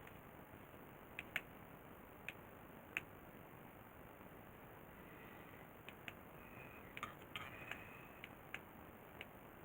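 Scattered light clicks and taps from small parts and tools being handled, a few early and a quicker cluster with faint squeaks near the end, over quiet room tone.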